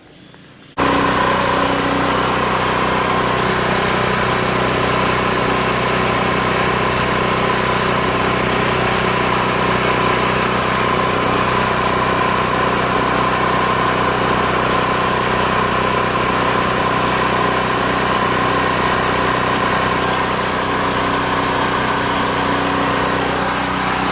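Portable gasoline generator running at a steady speed: a constant engine drone with a steady high whine. It cuts in abruptly about a second in and eases slightly after about 20 seconds.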